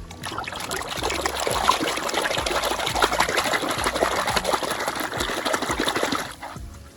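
Water running and splashing onto toy vehicles as they are washed; it stops abruptly about six seconds in.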